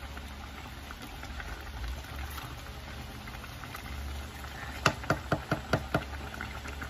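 Pot of chicken vermicelli soup boiling on the stove, stirred with a plastic rice paddle. About five seconds in, a quick run of about seven knocks as the paddle taps against the pot.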